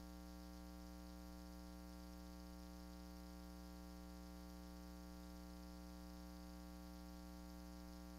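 Near silence: a steady low electrical hum with a faint hiss, unchanging throughout.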